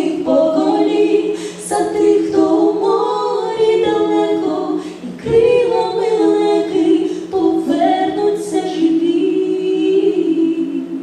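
Two women singing as a duet in harmony through the final phrases of the song, the sound starting to fade right at the end.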